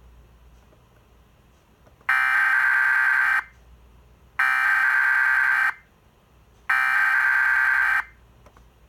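Emergency Alert System SAME header: three bursts of digital data tones, each about a second and a quarter long and about a second apart, marking the start of an emergency alert.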